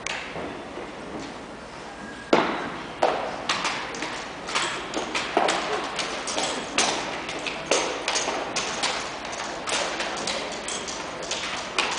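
Sharp knocks and smacks of drill rifles being handled in an armed exhibition drill routine: rifles slapped into hands, caught and grounded on a hardwood floor. The knocks come irregularly from about two seconds in, the first one the loudest.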